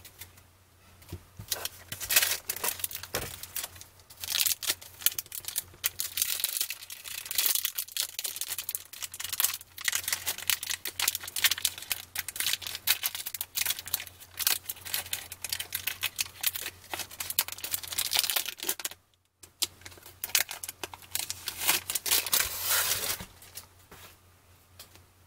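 Foil trading-card wax pack torn open and its foil wrapper crinkled and crumpled by hand: a dense crackling rustle, with a brief pause about three-quarters of the way through, stopping shortly before the end.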